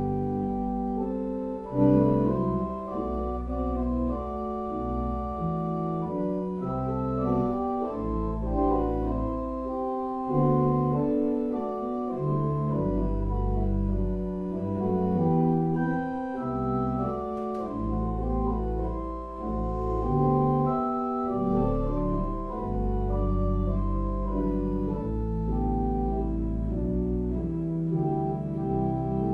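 Organ playing slow, sustained chords over deep held bass notes, as prelude music before the service begins.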